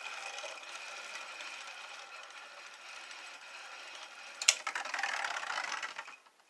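Two 3D-printed Beyblade spinning tops whirring steadily in a stadium. About four and a half seconds in there is a sharp click, then a louder rattling scrape that lasts about a second and a half before it stops abruptly just before the end.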